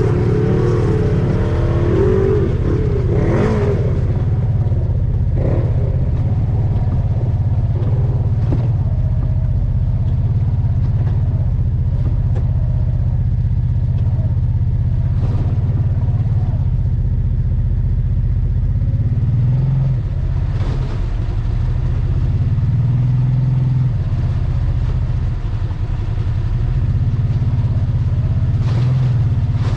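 Side-by-side UTV engine running steadily along a dirt trail, heard from on board. There are scattered knocks and rattles from bumps. The engine pitch swings up and down briefly about two-thirds of the way in and again near the end.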